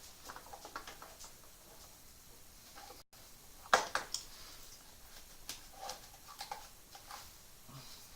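Scattered small clicks and rustles of hand work, with one sharper click a little under four seconds in.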